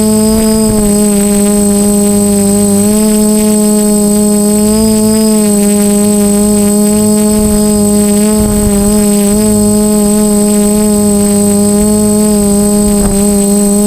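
DJI F450 quadcopter's four motors and propellers humming in flight. The sound is loud and steady at one held pitch, which shifts slightly every few seconds as the throttle changes.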